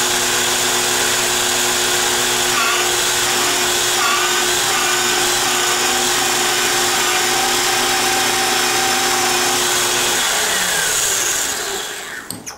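Otto Arc TSM electric pipe-beveling machine running steadily, a motor whine with a high hiss, as its cutter bevels the end of a 3/4-inch pipe elbow. About ten seconds in it is switched off and winds down with a falling whine.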